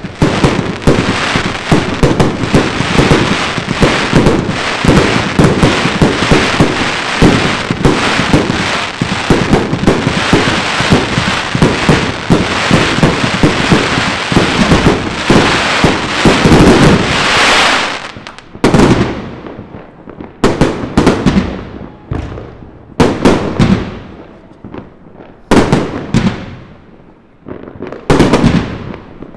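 Fireworks going off: a dense, rapid barrage of bangs and crackling for about the first eighteen seconds. After that come separate volleys of shots with short pauses between them.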